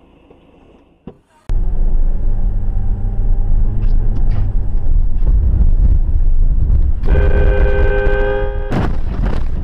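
Loud low noise of a vehicle on the road that starts suddenly about a second and a half in. Near the end a vehicle horn sounds for under two seconds, followed by a brief loud burst of noise.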